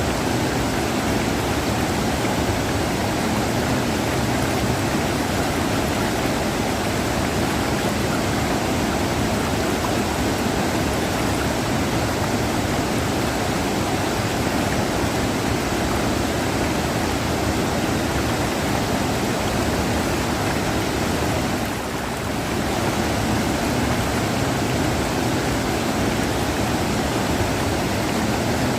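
River rushing: a steady, even rush of running water, with a slight dip in level a little past the middle.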